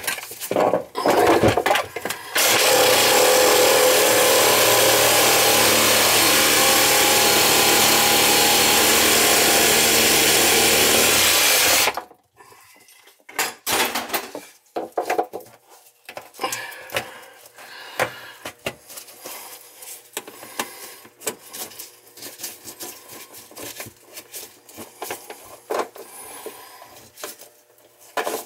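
A handheld power tool runs steadily for about nine and a half seconds, cutting old PVC drain pipe, and stops abruptly. After it come scattered short knocks and scrapes of pipe pieces being handled.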